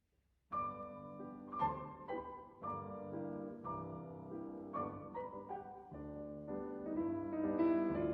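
Background piano music, a melody of separate notes, starting about half a second in after a short silence.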